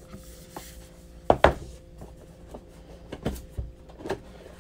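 Cardboard gift box and its display insert being handled and opened: a run of sharp knocks and taps, the loudest two close together about a second and a half in, over a faint steady hum.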